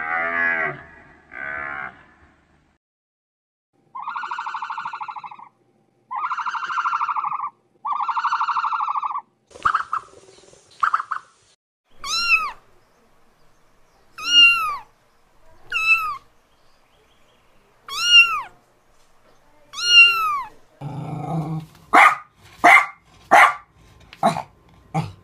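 A series of animal calls. A cow's moo trails off in the first seconds, then come three long buzzy calls. A domestic cat then meows five times, each meow rising and falling in pitch. Near the end there is a quick run of short, harsh animal calls.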